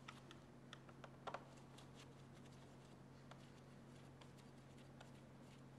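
Faint, scattered clicks and taps of a hand tool and plastic parts being handled in a car's engine bay, over a steady low hum. The loudest is a quick double tap about a second and a quarter in.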